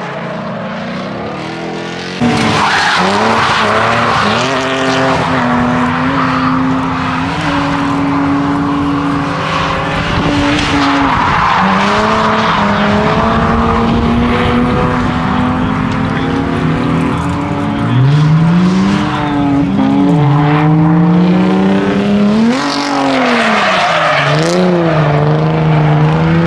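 Drift cars sliding sideways through a coned course: engines revving, their pitch holding steady and then sweeping up and down several times in the later part, over the screech and hiss of tyres skidding. The sound jumps louder about two seconds in.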